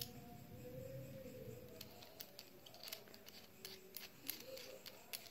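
Faint, scattered small metallic clicks and scrapes from a soldering iron as its tip is slid back into the heating element and the knurled barrel nut is worked by hand.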